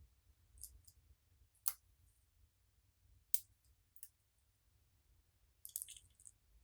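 Sharp, separate clicks and taps of small hard objects being handled, four spaced a second or so apart and then a quick cluster near the end.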